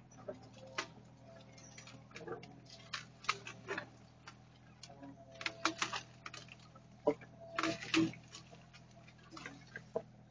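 Faint, irregular cracks and knocks of dry old lumber and brush breaking as a mini excavator's bucket tears up the pile, a few louder snaps among them. A low steady hum of the machine runs underneath.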